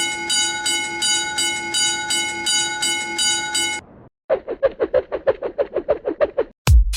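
Japanese railroad crossing (fumikiri) warning bell ringing in a steady rhythm of about three strokes a second, cutting off before the midpoint. After a short gap a lower-pitched alarm pulses about six times a second, and a loud dance-music beat comes in just before the end.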